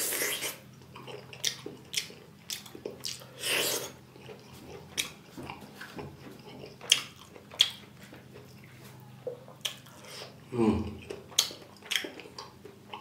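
Close-up eating sounds of rice and curry eaten by hand: wet chewing with sharp mouth clicks and lip smacks at irregular intervals.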